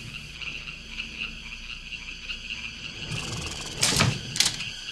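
Steady chirping of night insects in a film soundtrack's night ambience, with two sudden sharp sounds about four seconds in, half a second apart.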